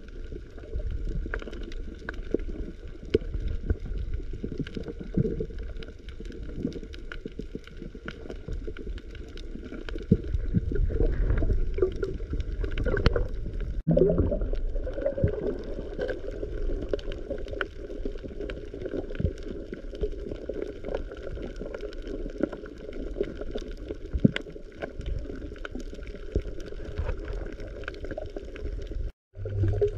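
Water gurgling and sloshing, with many scattered small clicks over a continuous low rumble; louder for a few seconds midway, and the sound cuts out briefly near the end.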